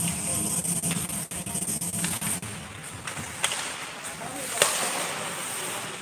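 Ice hockey rink during play: voices calling over a steady hiss, with short clicks, a sharp knock about three and a half seconds in and a louder one a second later.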